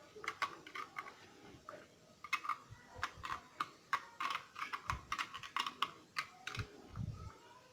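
Irregular light metallic clicks and ticks of a 10 mm wrench working the bolts of a car alternator's housing, tightening it up after a bearing replacement, with a few dull low knocks about five, six and a half and seven seconds in.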